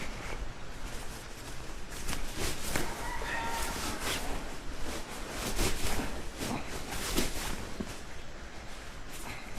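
A farm animal calls once, about three seconds in, among repeated knocks and clatter.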